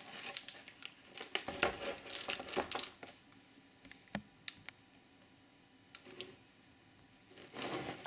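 Plastic packaging crinkling and rustling, with sharp clicks and knocks as a torque wrench in its plastic case is handled. Busy for the first three seconds, a single click about four seconds in, quieter after that until a burst of rustling near the end.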